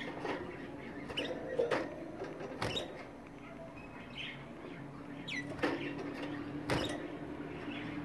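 Canaries moving about a wire cage: about four sharp knocks and rattles as they hop on the bars and perches, with a few brief chirps, over a faint steady hum.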